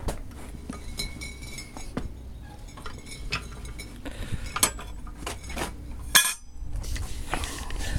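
Scattered light metallic clinks and knocks from the steel parts of a home-built bogie's steering mechanism, with a louder rattle of several strokes about six seconds in.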